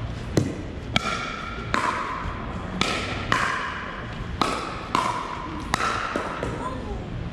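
A pickleball rally: paddles strike a hard plastic ball with sharp, hollow pops, about eight hits spaced roughly half a second to a second apart. Each pop echoes briefly in a gymnasium.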